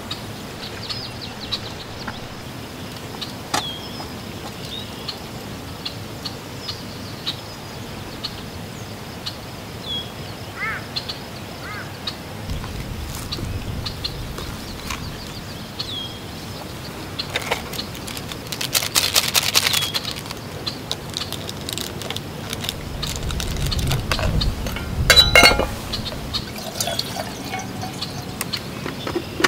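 Birds give short chirps every few seconds. Midway there is a spell of rustling and handling, and about 25 seconds in comes a sharp metal clink, the loudest sound. Near the end, water is poured from a plastic bottle into an aluminium camp kettle.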